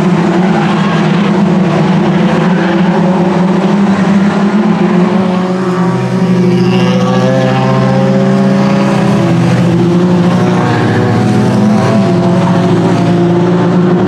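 A pack of Mitjet race cars at racing speed, several engines heard at once at different pitches. The mix of engine notes changes about six seconds in.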